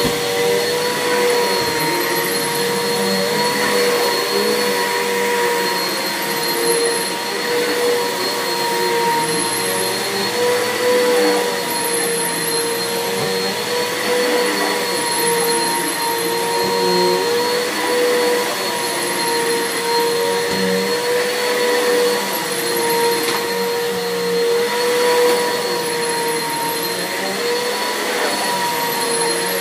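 Bissell 6583 vacuum cleaner running steadily on carpet, its motor giving a constant whine over the rush of suction.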